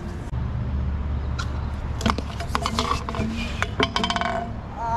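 Stunt scooter wheels rolling on a concrete ramp as a low rumble, broken by several sharp metallic knocks and clatters from about a second and a half in to around four seconds, as the scooter crashes onto the concrete in a fall.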